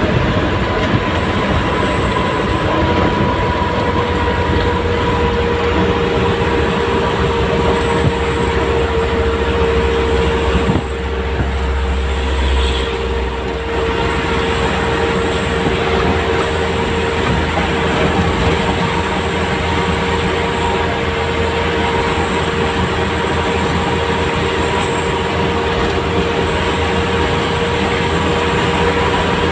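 Isuzu Elf light truck's diesel engine and road noise droning inside the cab while cruising at highway speed, with a steady whine over the drone. It dips briefly about a third of the way in.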